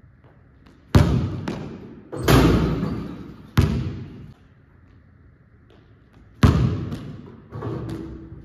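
A basketball bouncing hard on a hardwood gym floor and hitting the rim and backboard during dunk attempts: about six heavy thuds and bangs, each echoing in the large hall.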